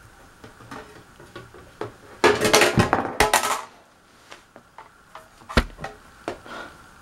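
Small metal parts clinking and rattling for about a second and a half, starting about two seconds in, then a few separate sharp knocks near the end.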